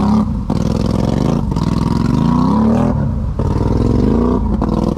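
ATV engine revving, its pitch climbing three times and dropping back between climbs.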